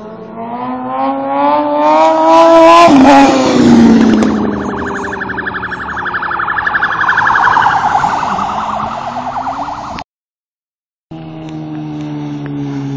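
Sportbike engine revving hard as it accelerates past, its pitch climbing for about three seconds and dropping as it goes by, then more high revving that slowly falls away. The sound cuts out for about a second near the end and returns as a lower, steadier engine tone.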